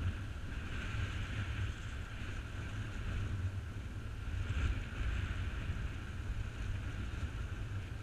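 Wind buffeting the microphone as a steady low rumble, with wind through tree leaves rising in gusts about a second in and again at about four and a half seconds.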